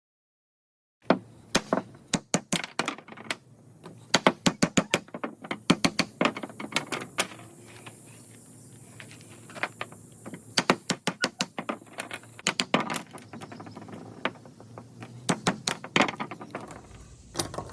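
Sharp wooden clicks and knocks from hard, dry dogwood being worked by hand, coming in irregular quick clusters.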